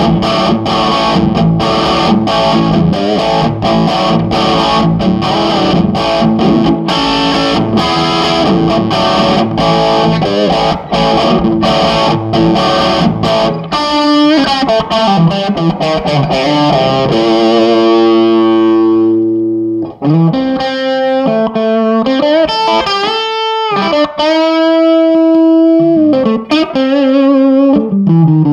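Electric guitar played through a Marshall Lead 12 solid-state mini stack, lightly overdriven. Busy chord playing gives way about 14 seconds in to a chord left ringing and dying away. From about 20 seconds, single-note lead lines follow, with held notes and bends.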